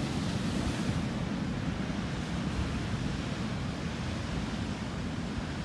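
Pacific Ocean surf rushing and washing over a rocky shore, a steady heavy wash of water, a little louder in the first second, with wind rumbling on the microphone.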